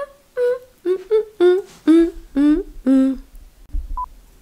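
A woman's voice singing a wordless "do-do-do" tune in about eight short, bouncy notes, standing in for outro music. A short electronic beep comes near the end.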